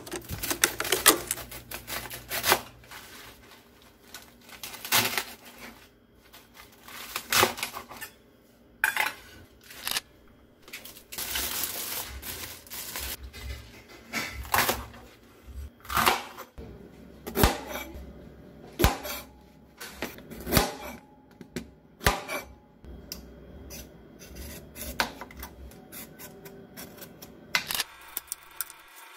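Vegetables being cut with a knife on a wooden cutting board, sharp knocks on the board every second or two among other clatter of handling the produce. Near the end a vegetable peeler scrapes a carrot.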